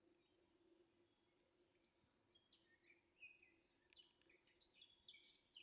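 Faint birdsong: short high chirps and quick notes, sparse at first and growing busier toward the end, over a faint steady low hum.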